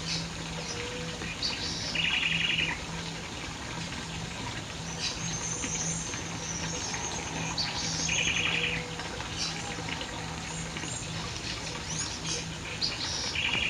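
Birds singing outdoors. One bird repeats a short trill, under a second long, three times about six seconds apart, while other birds add thin, higher chirps in between.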